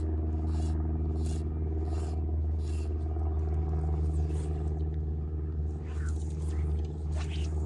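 Steady low mechanical hum made of several fixed tones, unchanging throughout, with a few faint brief scrapes higher up near the end.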